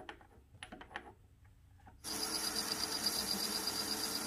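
A few light metal clinks as an aluminium blank is seated in a lathe's three-jaw chuck. About two seconds in, a metal lathe starts cutting the spinning aluminium disc, with a steady cutting noise over a fast, high-pitched pulsing.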